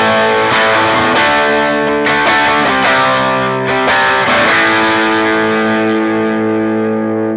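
Yamaha SG-5A "Flying Samurai" electric guitar played through overdrive: distorted chords struck one after another, changing every half second to a second. About four and a half seconds in, a last chord is left to ring and slowly fade.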